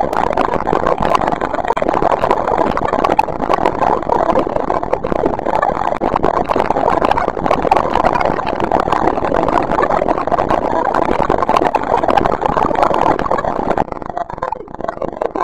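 Dense, crackling, machine-like noise drone from an experimental sound piece, steady and loud, thinning out and dropping in level near the end.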